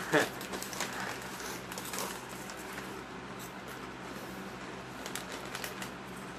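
Crinkling of Cheetos snack bags and crunching as two people eat from them: faint, scattered crackles over a steady low hum. A short, loud vocal sound comes right at the start.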